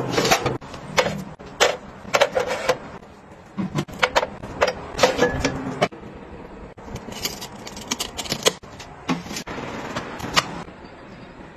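Close-up kitchen handling sounds: a string of sharp clicks, taps and clinks as glass jars, lids, containers and a cup storage box are handled and set down on a stone counter, in quick clusters separated by short pauses.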